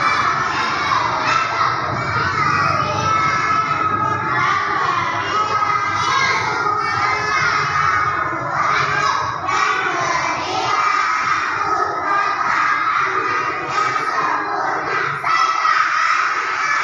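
A group of young children shouting and calling out together, many high voices overlapping without a break.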